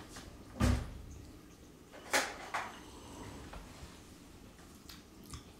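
Small household knocks in a quiet kitchen. A dull thump comes about half a second in, then two sharper clicks around two seconds in and a few faint ticks after.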